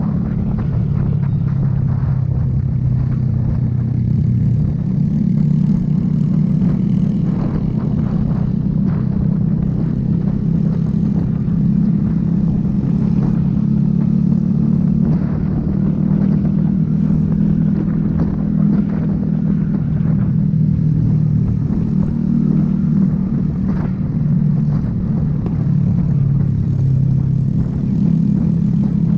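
Motorcycle engine running steadily at cruising speed in fourth gear, heard from on the bike itself as an even, low drone.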